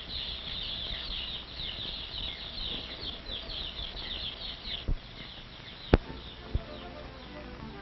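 Many day-old chicks peeping, a dense chorus of short, high, falling cheeps that thins out after about five seconds. Three sharp clicks come about five, six and six and a half seconds in, the one near six seconds the loudest. Faint music begins near the end.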